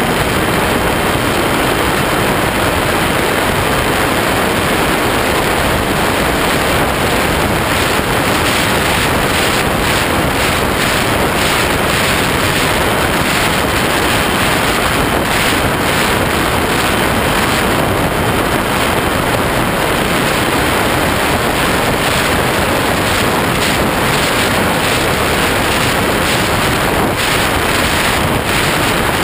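Steady loud rush of airflow and wind buffeting on a camera mounted under the wing of a ParkZone Habu electric ducted-fan RC jet in flight, with the ducted fan running underneath.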